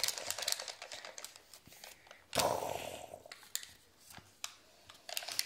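Folded origami paper being handled: light rustling and crinkling with small clicks, and one louder rustle about two and a half seconds in.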